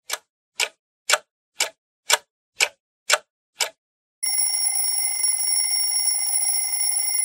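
Clock-and-alarm sound effect: a clock ticking eight times, about two ticks a second, then an alarm clock ringing continuously from about four seconds in.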